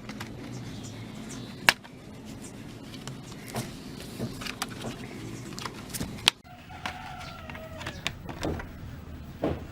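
Scattered sharp clicks and knocks, the loudest a little under two seconds in and about six seconds in, over a low steady hum; just after the second loud knock a wavering animal call lasts about a second in the background.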